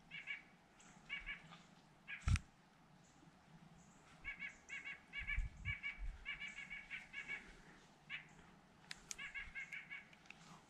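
An animal calling in rapid bursts of short, repeated chirping notes, several bursts in a row. A single sharp knock comes about two seconds in, and a few dull low thumps follow a few seconds later.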